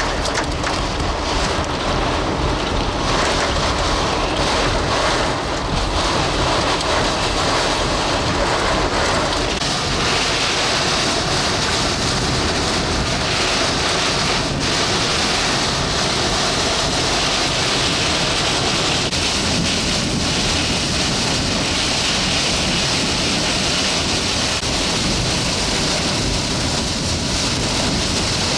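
Heavy wind-driven rain and strong wind beating on a car, a steady noise that turns hissier after about ten seconds.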